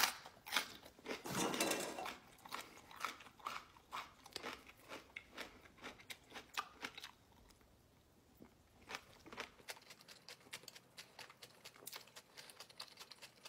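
A raw jalapeño pepper being bitten into and chewed, with crisp crunches that are densest in the first seven seconds and thin out after that.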